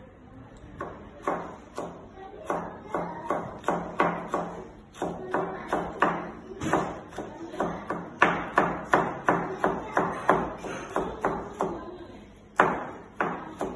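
Kitchen knife chopping a green vegetable on a plastic cutting board: a run of sharp knocks, about three or four a second at the fastest, with a short pause near the end.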